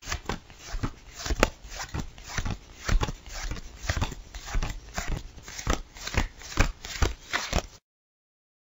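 Playing cards being dealt one by one onto a table, a quick run of crisp card snaps and slaps at about three a second, stopping near the end.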